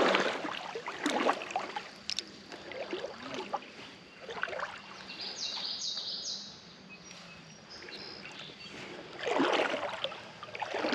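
Creek water splashing and sloshing in uneven swells as an angler wades. A bird gives a short call of three quick high notes about halfway through.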